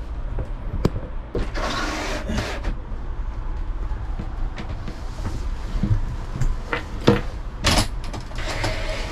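Rustling and a few knocks and clicks as someone shifts and settles on a camper's bench seat, over a steady low hum.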